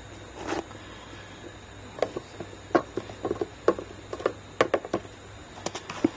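A hard resin 3D print being handled and turned by hand on a turntable: a short scrape, then a string of irregular light clicks and taps.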